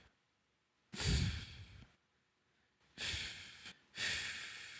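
A man sounding the English /f/ phoneme three times: a voiceless hiss of air pushed out, each about a second long with short pauses between.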